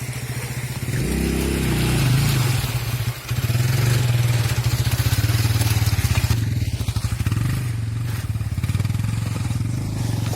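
Motorcycle engine running under way, its note rising about a second in and easing off around three seconds, with a rush of wind and road noise.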